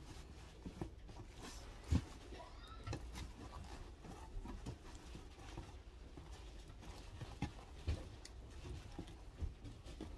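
Flower stems and a garland being handled on a cardboard-covered worktable: scattered soft knocks and rustles, the loudest knock about two seconds in, over a steady low hum.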